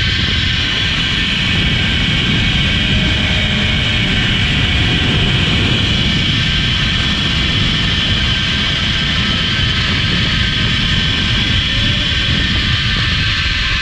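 Loud, steady rush of wind buffeting the microphone of a camera riding along a zipline, mixed with the whir of the trolley's pulleys running on the steel cable.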